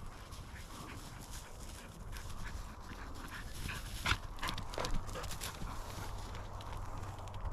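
A bird dog working through dry grass and brush, its movement making a run of rustling and crunching, with two sharper cracks about four and five seconds in.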